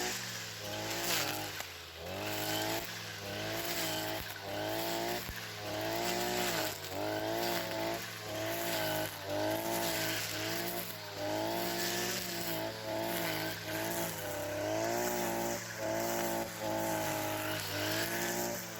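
Weed whacker fitted with a cutting blade, its engine revving up and falling back about once a second as it mows down dry weeds.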